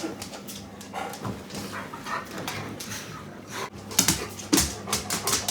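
Pet dog whimpering softly amid light rustles and clicks, with a few sharper knocks about four seconds in.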